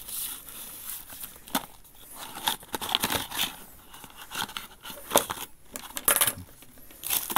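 Cardboard box and paper packaging being handled: irregular rustling, scraping and crinkling with sharp clicks as a mini tripod is slid out of its box. The loudest scrapes come about five and six seconds in.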